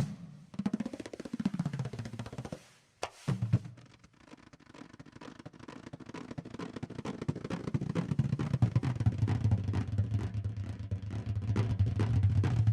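Percussive background music: a few drum hits and a short break about two and a half seconds in, then a rapid drum roll that builds steadily louder.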